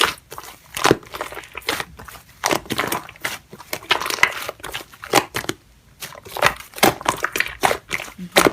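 Slime being squeezed and worked by hand, giving irregular crackling, crunching clicks.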